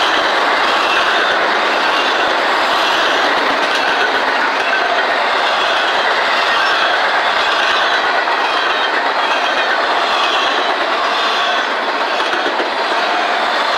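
Double-stack intermodal well cars of a freight train rolling past, a steady, loud wheel-on-rail noise that dips slightly near the end.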